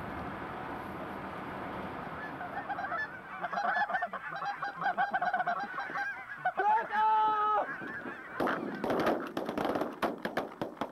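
Goose honking builds from about two seconds in, many overlapping honks with one long held call, as a flock works over decoys. From about eight seconds in, a quick series of shotgun shots breaks in.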